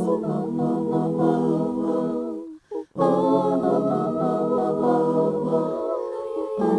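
Layered voices singing sustained notes in harmony, a cappella, breaking off briefly about two and a half seconds in before resuming.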